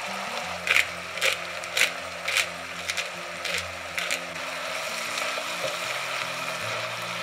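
A run of seven short, crisp strokes about half a second apart from kitchen food preparation, stopping about four seconds in, over steady background music.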